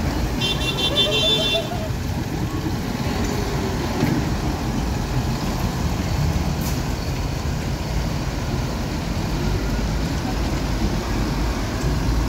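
Large farm tractors' diesel engines rumbling steadily as they drive slowly past close by. A brief high-pitched pulsing tone sounds about half a second in.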